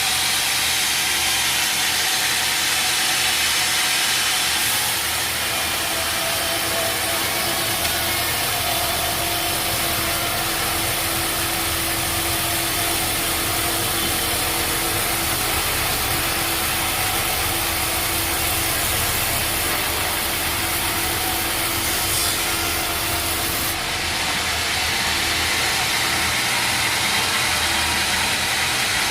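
A sawmill saw cutting through wood, running steadily throughout, with a steady hum present through the middle stretch of the cut.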